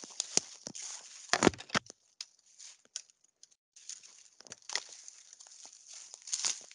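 Irregular rustling and crackling of dry leaves and twigs, as from someone moving or stepping through woodland litter, with a louder crunch about a second and a half in.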